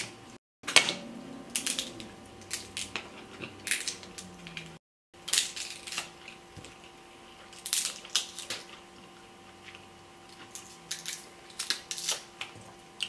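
Cooked king crab leg shells cracking and snapping as they are broken open by hand, in irregular sharp cracks and crunches, over a faint steady hum.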